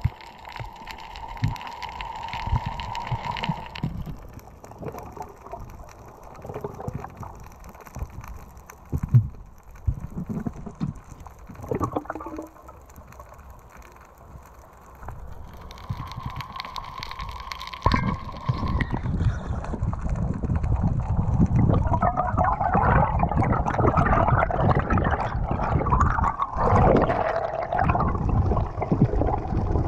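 Underwater sound at a freediver's camera: muffled water washing and gurgling with irregular low thumps. A steady hum comes in near the start and again past the middle. The water noise grows louder and denser through the last third as the diver nears the surface.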